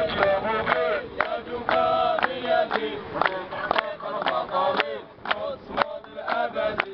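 A crowd of male protesters chanting slogans together in phrases, with a few sharp knocks among the voices.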